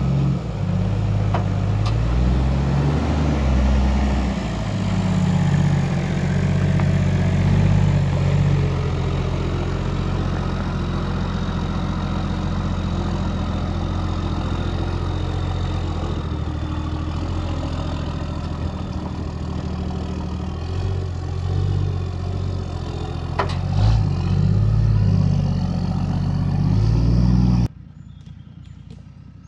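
Toyota Land Cruiser 80 series engine working under load as the four-wheel drive crawls through deep ruts, the revs rising and falling, with a few short knocks. The engine sound drops away suddenly near the end.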